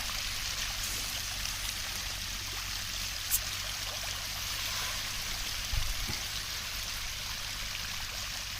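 Steady rush of running water, with a single sharp click about a third of the way through and a low thump near the end.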